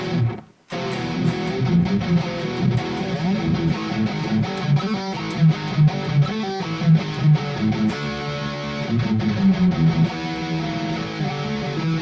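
Harley Benton SC-500 electric guitar played through the Overloud TH3 amp simulator on a heavy, distorted setting, riffing and strumming with a brief stop just after the start.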